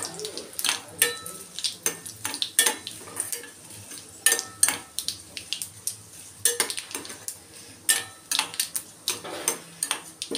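Steel spoon scraping and clinking irregularly against a stainless steel kadai while stirring a tempering of mustard seeds, cumin, curry leaves and dried red chillies, with the oil sizzling underneath: the tempering is being fried until done.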